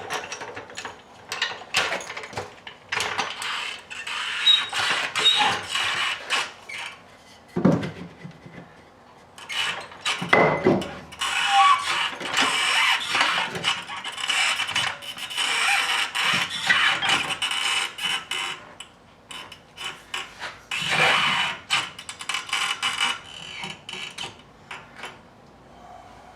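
A jack being set under a truck door with a 2x4 and worked to raise it: a run of metal clanks, ratcheting clicks and knocks in several spells, with a few heavier thuds.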